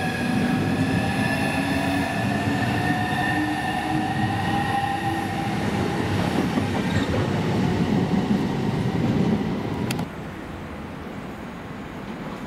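Southeastern Class 395 Javelin electric train accelerating along the platform: an electric traction motor whine rising in pitch over a rail and wheel rumble. About ten seconds in it cuts off abruptly to a quieter, steady rumble.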